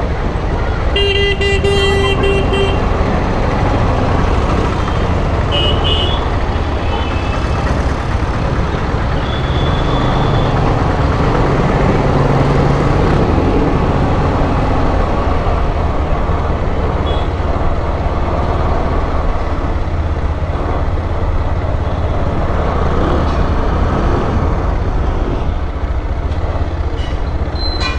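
Steady road noise from riding a motorcycle through town traffic: engine and wind noise, with a vehicle horn honking for about two seconds near the start and a few short horn toots after it.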